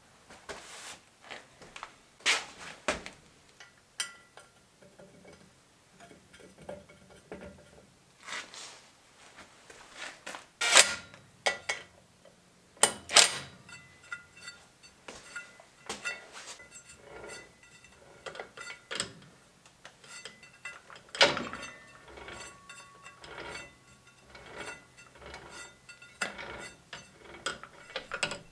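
Metal parts clinking, knocking and scraping against each other as a CVT pulley is handled and fitted onto a gearbox shaft. Some clinks ring briefly, and a few louder knocks come near the middle.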